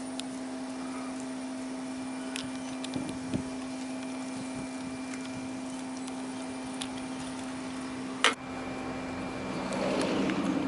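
Steady mechanical hum holding a low tone, with a single sharp click about eight seconds in and a rise in broad noise near the end.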